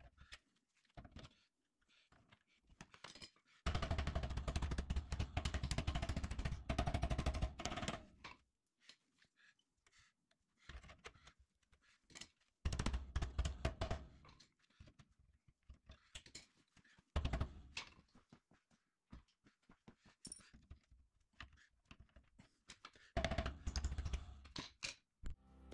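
Metal clattering and rapid tapping as a hand tool works the flange of a round duct collar set in a sheet-metal wall. The noise comes in four spells, the longest about four seconds long starting near four seconds in, with scattered single clicks between them.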